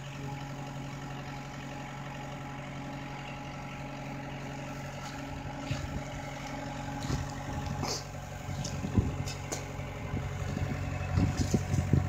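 Daewoo skid steer loader's engine running steadily at idle, with scattered light clicks and knocks in the second half.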